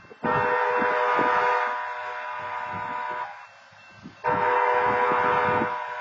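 Diesel locomotive horn sounding two long blasts of several tones, each about three seconds with a second's gap, each easing off in level partway through. This is the opening of the long-long-short-long grade-crossing signal as the train approaches.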